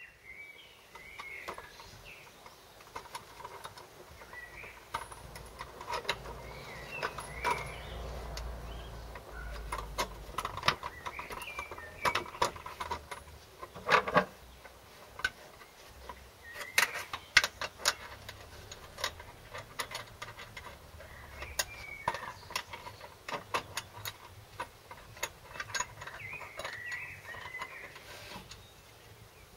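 Metal air filter housings being handled and fitted back onto an MGB's twin carburettors: scattered clicks, knocks and light metallic rattles, with a few sharper knocks in the middle.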